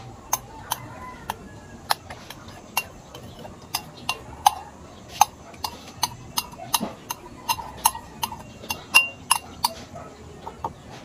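Metal spoon clinking and scraping against a glass bowl in quick, irregular strokes, some ringing briefly, while mashing tableya cocoa tablets to dissolve them.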